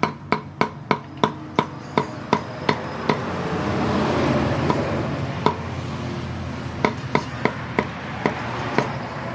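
Knife chopping food on a cutting board in quick, even strokes, about three a second, in two runs, with a few single chops and a swell of rushing noise between them.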